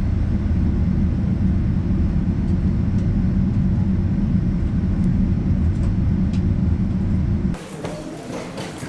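Steady low rumble of a Boeing 737-800 heard from inside the cabin, the noise of its jet engines and airflow, which cuts off suddenly about seven and a half seconds in.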